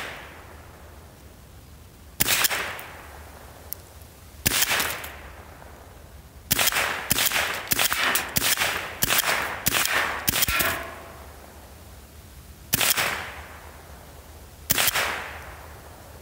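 Stevens Model 87A semi-automatic .22 rifle firing: two single shots a couple of seconds apart, then a quick string of about nine shots in four seconds, then two more single shots, each crack with a short echo. The rifle is feeding and cycling with no jams.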